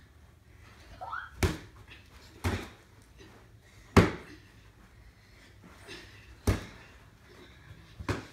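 Punches with boxing gloves landing: five sharp smacks spread irregularly a second or more apart, the loudest about four seconds in.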